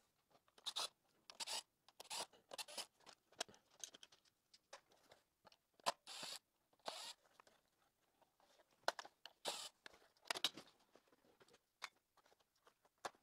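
Handling noises from taking apart a Roomba 670 robot vacuum: a scattered series of short scrapes, clicks and rustles as its plastic chassis and parts are moved about and tools are picked up and set down.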